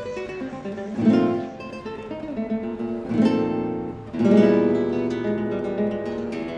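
Background music: acoustic guitar strummed, with fresh chords struck about a second in, at three seconds and at four seconds.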